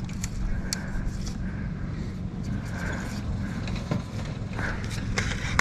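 A small engine running steadily with a low hum, with scattered light clicks from fishing tackle being handled.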